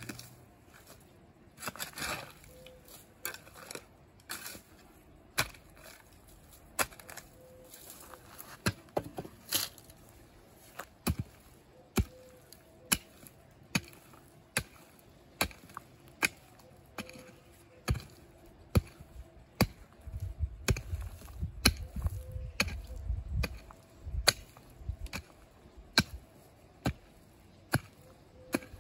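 A mattock chopping into dry, grassy, root-filled ground with a steady series of sharp blows, about one a second.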